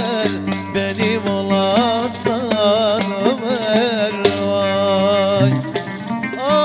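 Live Kurdish folk music with oud and hand-percussion rhythm: a wavering, ornamented melody runs over a low held note that lasts from just after the start to about five and a half seconds in.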